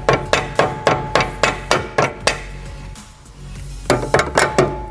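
Hammer blows on a steel drift driven into the pinch slot of a VW Mk7 GTI's front steering knuckle, spreading the knuckle to free the strut tube. About nine ringing metal strikes come at roughly four a second, then a short pause, then four more near the end.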